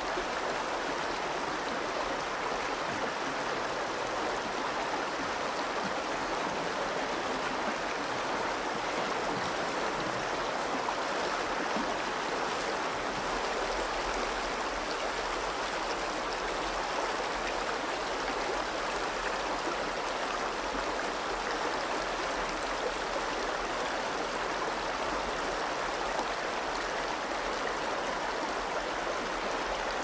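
Shallow river water flowing steadily over a rocky bed, an even rushing babble with no distinct splashes.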